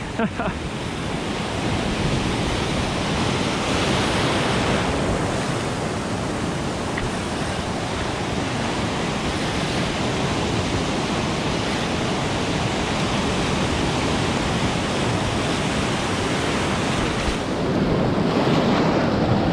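Ocean surf washing and foaming around rocks at the water's edge, swelling louder as waves come in about four seconds in and again near the end.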